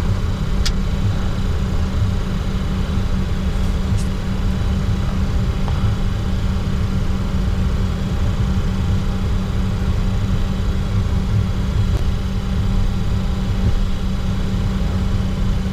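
Steady cockpit noise of a Bombardier Challenger 604 taxiing, its twin GE CF34-3B turbofans at idle thrust: a low rumble with a constant hum. Two faint clicks come just under a second in and about four seconds in.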